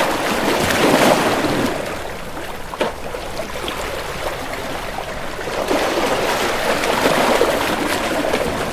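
Water rushing and splashing in a steady wash that swells about a second in and again over the last few seconds.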